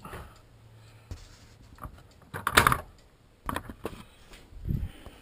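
Handling noise from a hand gripping the small camera mounted on a model train car: irregular clicks and knocks. There is a louder scraping rub about two and a half seconds in, and a dull knock near the end.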